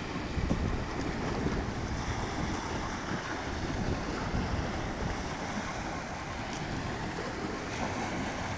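Wind buffeting the microphone over small lake waves washing onto a stony shore, a steady rushing noise with an uneven low rumble.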